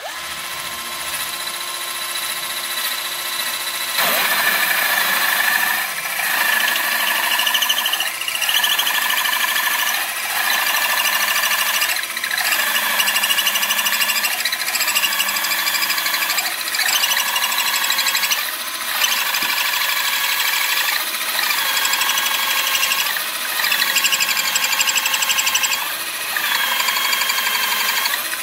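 Warrior 18V cordless drill spinning a Craftsman 1-3/4 inch bimetal hole saw through a wooden board. The motor whines, and about four seconds in the saw bites and the sound gets louder as the teeth rasp through the wood. The motor's pitch then sags and recovers every couple of seconds as the saw is pushed in and backed out, a light-duty drill working hard to get through.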